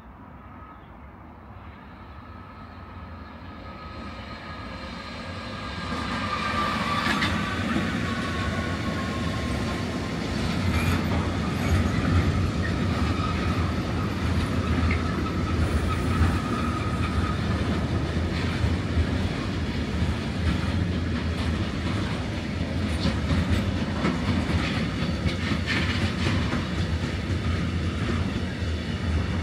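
Freight train rolling through the station: it grows louder over the first several seconds, then holds a steady heavy rumble of wheels on rail with irregular clicks over the rail joints. A thin, slightly falling wheel squeal runs between about six and ten seconds in.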